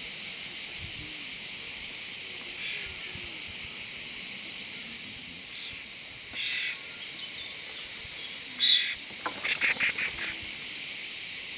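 Steady high insect shrilling from the summer meadow, with a few short calls over it. About nine seconds in there is a brief sharp sound followed by a quick run of pulsed chirps.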